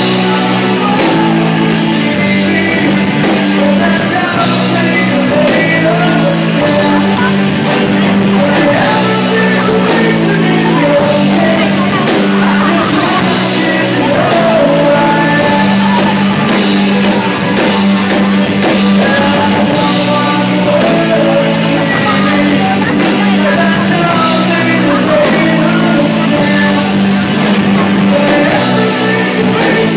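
Live rock band playing loud: electric guitars over a stepping bass line and drums, with a singer's voice.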